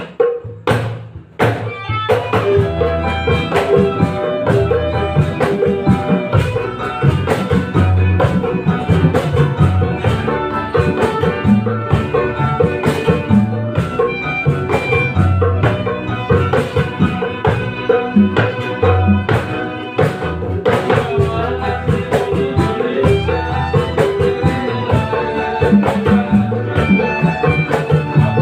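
Band practising an instrumental passage with kendang hand drumming: a few drum strikes, then the full band comes in about two seconds in and plays on with a steady beat.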